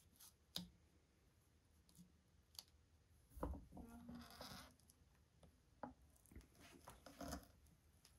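Quiet handling sounds of leather and metal being fitted under a hand press: scattered soft clicks and taps. There is a louder knock with a brief rustle about three and a half seconds in, and a cluster of taps later on.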